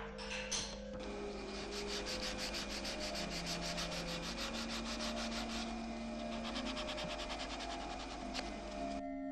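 Hand sanding of old organ-case woodwork: abrasive paper rubbed over the wood in quick, even back-and-forth strokes, stopping abruptly near the end. Faint sustained low musical notes sound underneath.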